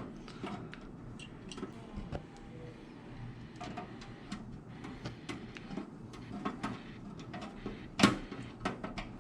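Scattered small clicks and knocks of PC parts and cables being handled inside a computer case, with one louder knock about eight seconds in.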